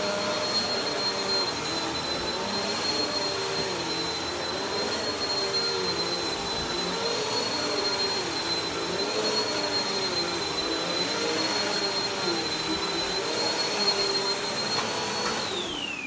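Bagless upright vacuum cleaner running on carpet: a steady high motor whine over a lower hum that rises and falls in slow waves. Near the end the motor is switched off and the whine falls away as it winds down.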